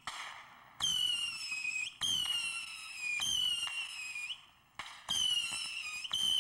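Whistling ground fireworks going off one after another: about five shrill whistles, each starting sharply, lasting about a second and sliding slightly down in pitch, with a short gap about two-thirds of the way through.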